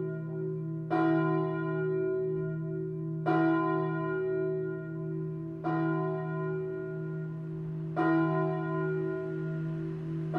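Full peal of cast-steel church bells swinging together. The bells ring over a steady, deep hum, with a sharp new strike about every two and a half seconds.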